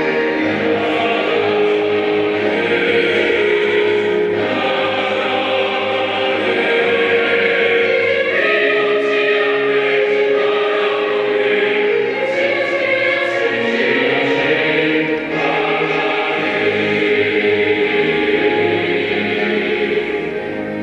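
Mixed choir singing a Korean sacred choral anthem with instrumental accompaniment, in long held chords.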